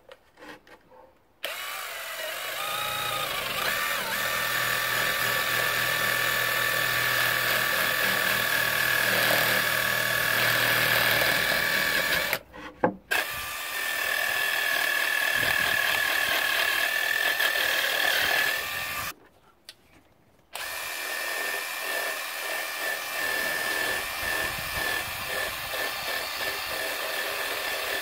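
Cordless drill spinning a sanding drum inside the hollow of a totara wood bowl, sanding it out. It runs with a steady whine in three long stretches, stopping briefly about twelve and nineteen seconds in.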